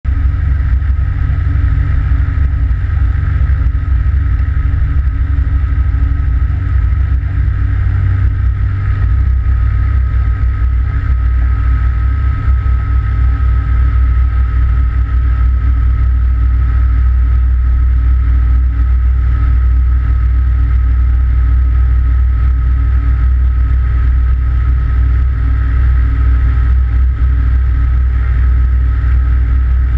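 Aventura amphibious aircraft's engine and propeller running steadily as it taxis on the water, a loud even hum with a steady higher whine, over water rushing past the hull.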